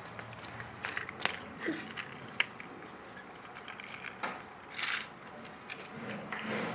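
Small plastic toy tipper truck being handled: scattered sharp clicks of hard plastic parts, and short scrapes as its plastic wheels are pushed across rough concrete about four to five seconds in.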